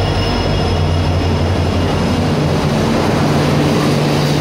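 WDP-4D diesel-electric locomotive with its EMD two-stroke diesel running as it rolls past on arrival at the platform, with a steady low engine drone over the noise of the wheels on the rails. As the locomotive goes by, a second, slightly higher steady engine hum from the train's generator power car takes over near the end.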